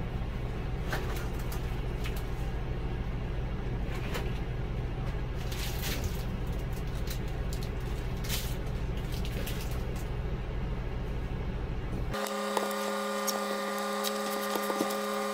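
A steady low machine hum with scattered light knocks and clicks. About twelve seconds in it cuts abruptly to a different steady hum with several pitched tones.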